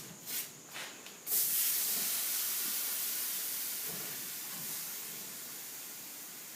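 Freshly silver-soldered copper joints hissing with steam as they are cooled. The hiss starts suddenly about a second in and slowly fades away, after a few light knocks.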